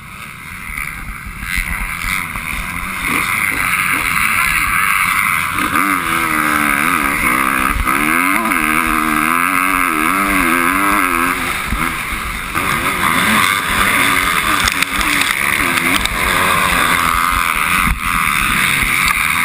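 Dirt bike engine revving up and down hard as it rides the track, heard from a helmet-mounted camera, its pitch rising and falling rapidly in the middle.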